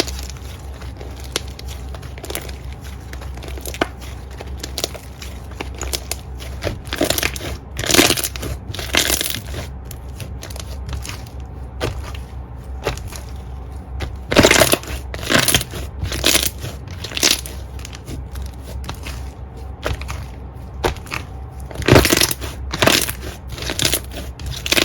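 Slime being pressed and squeezed by hand close to the microphone, giving irregular crunching and crackling pops that come in clusters, over a steady low hum.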